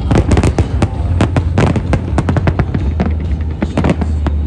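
New Year fireworks display: a dense, rapid run of sharp bangs and crackles, several a second, over a steady low rumble.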